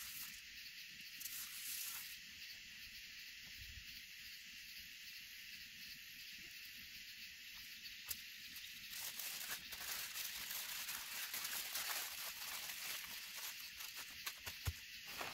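Aluminium foil crinkling under hands as a seasoned fish is rubbed on it and then folded into a foil packet. The crinkling is busiest from about nine seconds in. Beneath it runs a steady high-pitched chorus of night insects.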